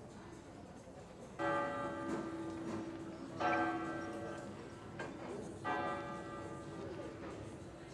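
A large church bell tolling, struck about every two seconds, three strokes in all, each ringing on and slowly fading before the next.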